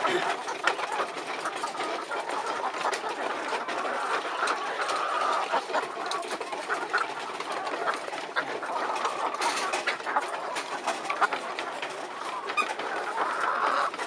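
A flock of caged laying hens clucking and chattering continuously, with many short clicks and taps running through it.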